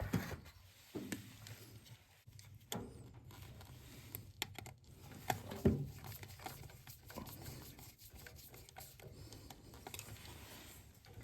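Scattered light clicks and taps of hands working the wiring and terminals on a furnace control board, over a faint low hum.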